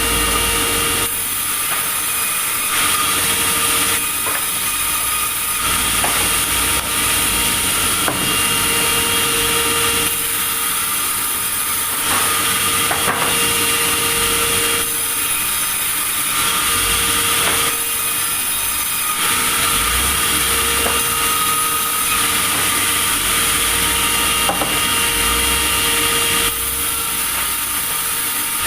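Sawmill saw running and cutting through wood, a steady loud noise whose tone shifts every second or two.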